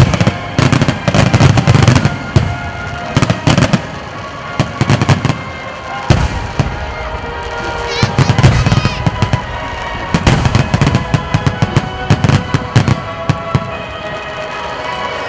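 Aerial firework shells bursting in quick succession, deep booms and sharp cracks, dense for the first few seconds, thinner in the middle, then building again around eight seconds in. Music plays underneath.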